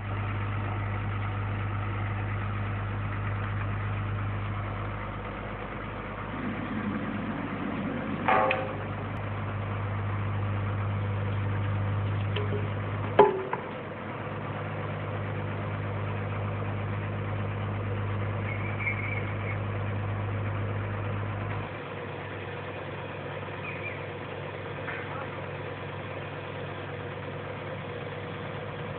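Truck engine running steadily while powering a truck-mounted hydraulic crane that lifts a steel frame, its note shifting a few times and growing quieter about twenty-two seconds in. Two sharp metal clanks stand out, about eight and thirteen seconds in, the second the loudest.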